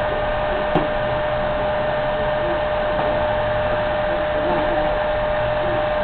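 Vacuum cleaner running with a steady motor whine over a rush of air, its hose and wand pushed across carpet. One sharp click just under a second in.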